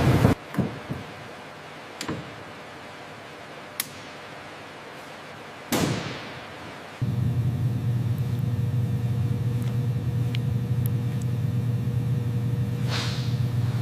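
A short whoosh and a few faint clicks, then a second whoosh. From about seven seconds in, a steady low mechanical hum with a faint higher tone above it.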